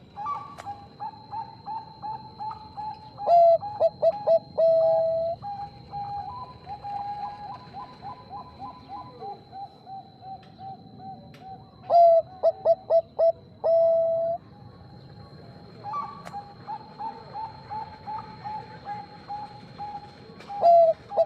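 Zebra dove (Bangkok perkutut) cooing: a steady run of quick, soft pulsed coos, broken three times by louder, lower song phrases about every eight seconds. A faint steady high tone runs underneath.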